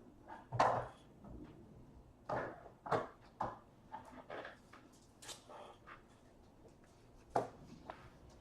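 Trading cards and card packaging being handled on a tabletop: short, scattered rustles and light knocks, the loudest a little over half a second in.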